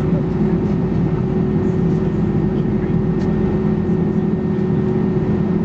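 Steady cabin drone of an Airbus A319 taxiing after landing, its IAE V2500 engines at idle, with a constant low hum.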